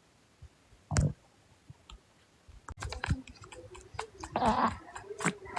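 A man's stomach gurgling, heard close up: one sharp click about a second in, then from about halfway a run of clicks and squelchy gurgles, loudest in a short burst near the end.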